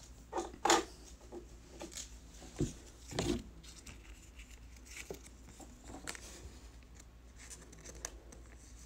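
A trading card being handled and slid against clear plastic card holders: a few faint scrapes and clicks, the clearest ones within the first second and another a little after three seconds.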